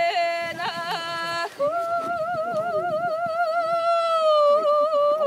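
A woman singing unaccompanied in a high voice, Mongolian folk style: first a phrase broken by quick upward vocal flicks, then after a short break about a second and a half in, one long held note with wide vibrato that sinks slowly in pitch.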